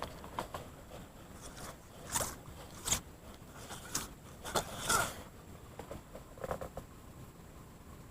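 A string of short scrapes and rustles from close handling, the loudest about two, three and five seconds in.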